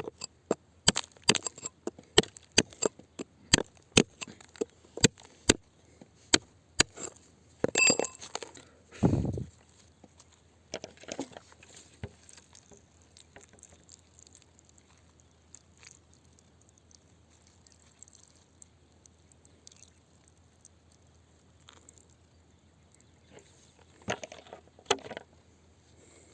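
Sharp knocks and clinks of a hand digging tool striking rock, about one a second for the first several seconds, then a heavier couple of blows with a scrape. After that it goes mostly quiet until a few more knocks near the end.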